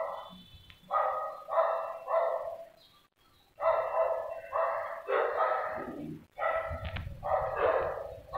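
A dog barking over and over, about two barks a second, with a short break about three seconds in.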